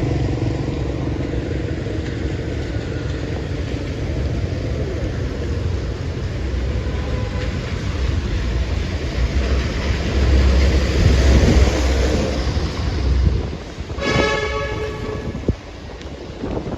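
Heavy low rumble of a large passing vehicle that swells and then fades, followed about fourteen seconds in by a horn blast lasting about a second.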